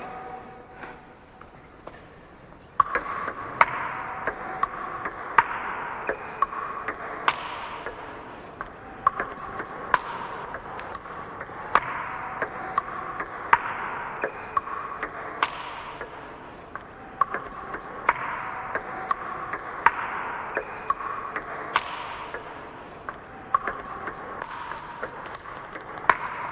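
Table tennis rally: the ball clicks off the paddles and the table in a steady back-and-forth from about three seconds in, as a defender returns the attacker's shots with backhand chops.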